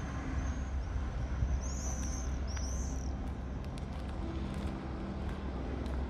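Steady low engine rumble with a faint hum, and two short high bird chirps about two seconds in.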